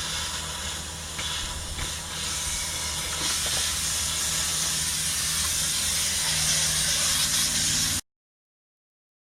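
Duct-cleaning equipment running: a steady rush of air over a low motor hum, getting a little louder after a couple of seconds, then cutting off suddenly near the end.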